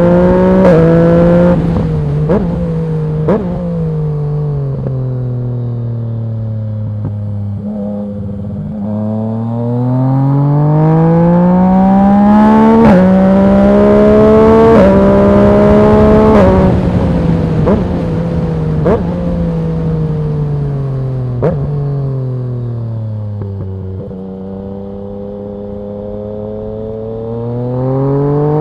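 Yamaha MT-09's 847 cc three-cylinder engine through a Dominator HP1 full aftermarket exhaust, accelerating hard through the gears with a sharp crack at each quick upshift. It then falls away in pitch as the bike slows, climbs through the gears again in the middle, slows once more, and picks up again near the end.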